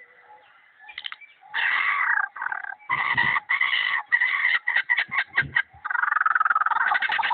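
Lyrebird mimicking laser-gun sounds: after a quiet first second and a half, a choppy series of loud, sharp calls, breaking about 6 s in into a rapid, even stream of pulsing zaps.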